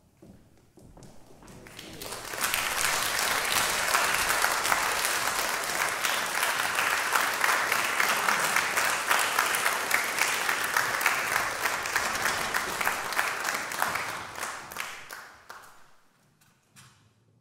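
Audience applauding, starting about two seconds in, holding steady, then dying away with a few last scattered claps near the end.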